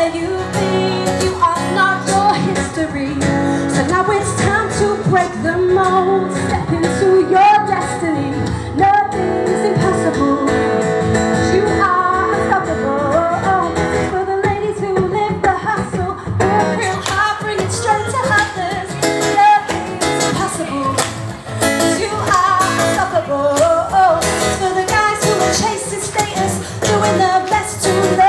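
A woman singing a pop song live into a microphone, backed by a band with guitar, keyboards and drums.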